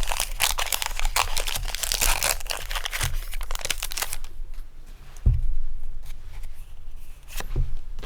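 Foil Pokémon booster pack wrapper crinkling and tearing open, dense for about four seconds, then quieter handling with a soft thump about five seconds in and a couple of light knocks near the end.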